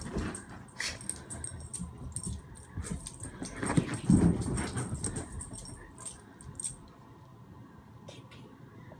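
Two dogs at play, making vocal sounds in bursts. The loudest burst comes about four seconds in, with scattered clicks and jingles from their movement. The sound dies down after about seven seconds.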